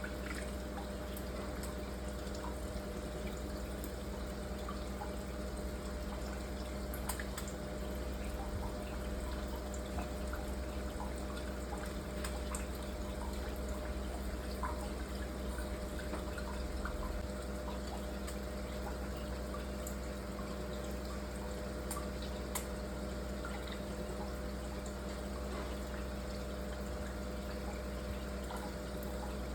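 Water running and dripping, with scattered small drips and splashes, over a steady low hum.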